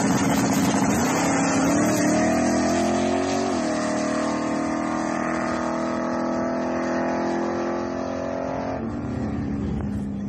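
Plymouth Barracuda drag car's engine at full throttle, launching and running down a drag strip. Its pitch climbs, drops suddenly about three and a half seconds in, then drops sharply again near the end.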